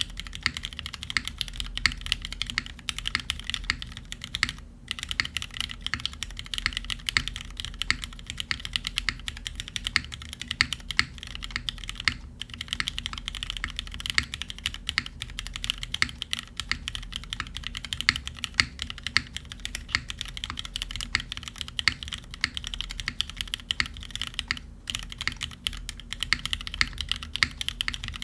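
Continuous fast typing on a B60 custom mechanical keyboard with lubed Cherry Vintage Black linear switches in a top-mounted aluminum plate, under GMK keycaps. The clacking stops for a moment three times.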